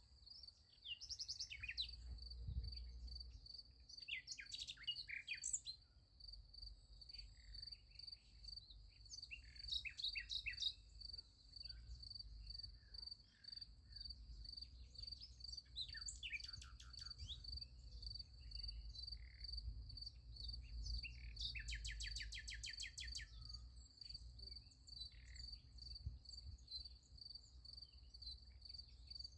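Crickets chirping in a steady, fast pulsing trill, with songbirds breaking in several times with short, rapid phrases. A faint low rumble sits underneath.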